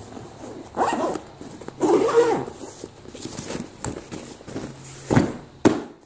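Zipper on a round canvas cable bag being pulled shut in a couple of long strokes, its rasp rising and falling in pitch with the pull speed. Two sharp knocks of the bag being handled come near the end.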